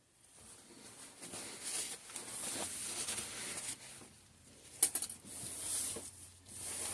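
Soft scraping and rustling of thick soap batter being worked with a utensil, coming in uneven swells, with a quick cluster of sharp clicks about five seconds in.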